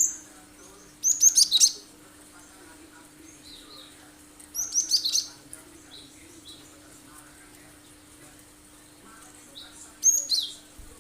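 Cinereous tit (gelatik batu) singing sharp, rapid high notes in three short bursts, each about a second long and made of quick downward-sweeping notes, with pauses of several seconds between them. A faint steady low hum runs underneath.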